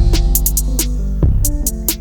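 Background music with a steady electronic drum beat and bass.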